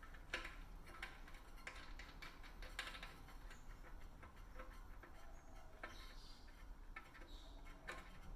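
Faint, irregular small clicks and ticks of a tubeless valve stem's lock nut being screwed down onto a bicycle rim.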